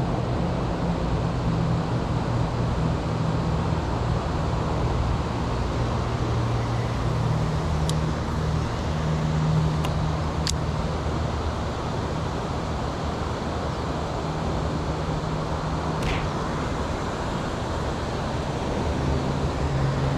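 Steady road traffic noise: a constant wash of passing vehicles with a low engine hum that rises and falls. A few faint sharp clicks come through partway in.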